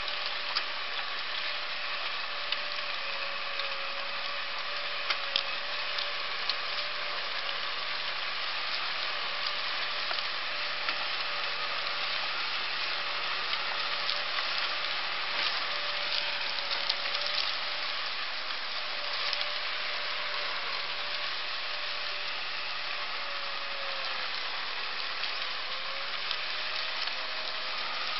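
Massey Ferguson 398 tractor's four-cylinder diesel running steadily under ploughing load, under a continuous crackling hiss with scattered sharp clicks as the plough turns over soil and crop stubble.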